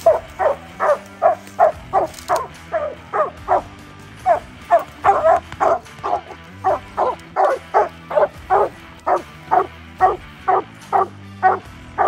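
Coonhound barking steadily at a tree, about two to three short barks a second: the tree bark of a hound that has a raccoon treed.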